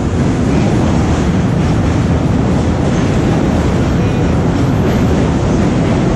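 A steady, loud, low rumbling noise with no clear rhythm or breaks.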